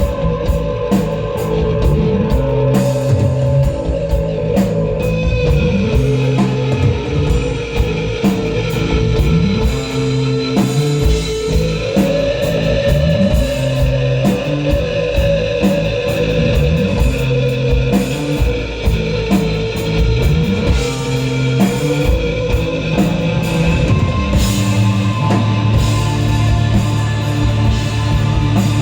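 Live rock band playing an instrumental desert-rock passage: an electric guitar holds a long, slowly wavering melody over a stepping bass line and a drum kit with cymbals. Near the end the bass settles on one held low note.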